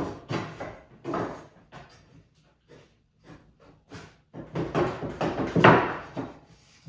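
Wooden boards being handled and shifted on a workbench: a series of knocks and scrapes, the loudest a little past five seconds in.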